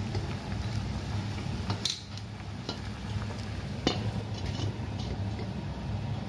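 Braising liquid bubbling steadily in a stainless steel pan while a spatula stirs it. A few sharp metal clinks come through, the clearest about two and four seconds in, as the domed stainless steel lid is set on the pan.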